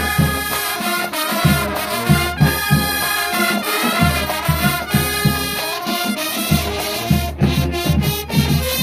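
High school marching band playing a stand tune: brass over a steady, punchy drum beat.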